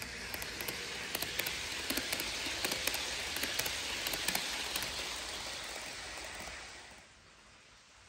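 HO scale model passenger train rolling past on sectional track: a steady rushing hiss from the wheels with many light, irregular clicks as they cross the rail joints, falling away sharply about seven seconds in.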